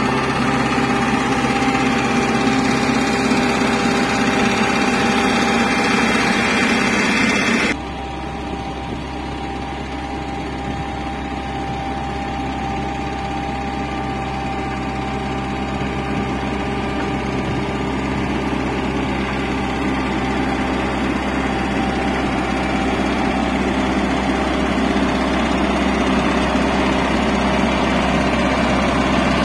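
Engine of a Hanta F1740C mini asphalt paver running steadily at work. About eight seconds in the sound suddenly turns duller and quieter, then slowly grows louder again.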